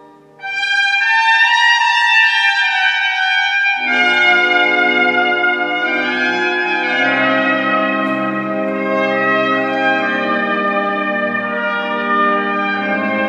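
Trumpet playing slow, held melody notes, with an organ accompaniment coming in underneath about four seconds in.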